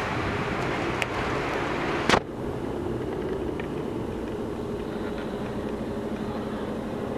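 Hitachi Zaxis 350 crawler excavator's diesel engine running steadily with a low hum. A small click comes about a second in and a sharp loud knock about two seconds in, after which the sound is duller.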